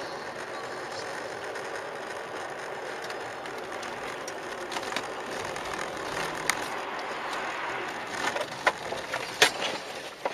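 Car on the move, heard from a dashcam inside it: steady road and tyre noise, with a few sharp knocks in the last few seconds, the loudest near the end.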